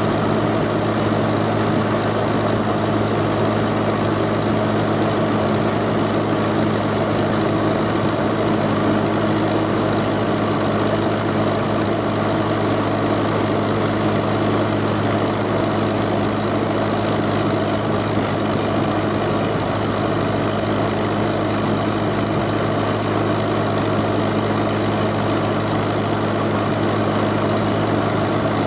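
Tractor engine running steadily at a constant speed, heard close up from on board a moving tractor, with a continuous low hum and no revving.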